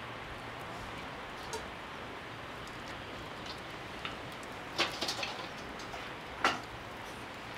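Scattered light clicks and knocks of bowls and utensils handled on a wooden table during food preparation, a small cluster about five seconds in and a sharper knock about six and a half seconds in, over a steady background hiss.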